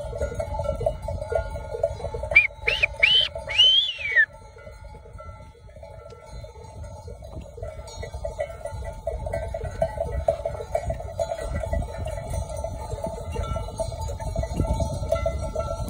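Bells on a large flock of walking sheep clanking together continuously over the low rumble of many hooves on dry ground. About two seconds in come three short whistles that rise and fall, then a longer one that falls away.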